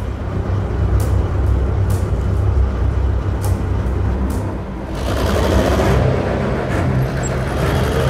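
Low, steady rumble of an idling tank engine, with faint clicks every second or so, under background music. About five seconds in, a louder rushing noise swells in.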